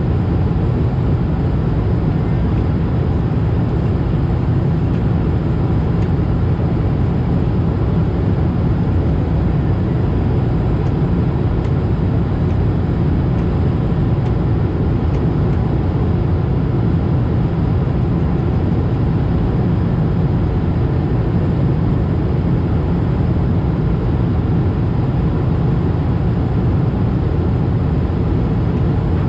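Steady cabin noise inside an Airbus A220-300 in flight: a low drone from its Pratt & Whitney PW1500G geared turbofan engines mixed with rushing airflow, unchanging throughout.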